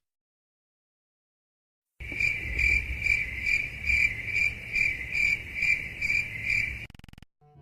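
Crickets chirping in an even rhythm, about two and a half chirps a second. This is the stock crickets sound effect used for an awkward silence. It starts after about two seconds of silence and stops shortly before the end.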